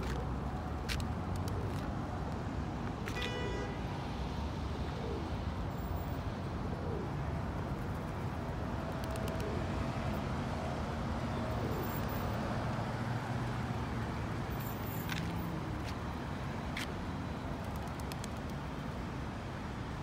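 Steady road traffic noise from passing cars, with a few sharp clicks and a short high squeak about three seconds in.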